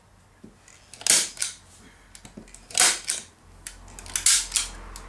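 Hand staple gun firing three loud snaps about a second and a half apart, driving staples through the chair's fabric seat cover into the seat board.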